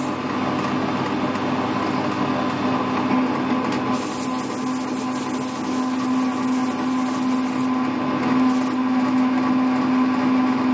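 Metal lathe running with a steady hum while a parting tool cuts off an aluminium boss, with aerosol lubricant sprayed onto the spinning work in hissing bursts, the longest from about four to seven and a half seconds in. The lubricant is used so that the parting tool doesn't dig in and snap.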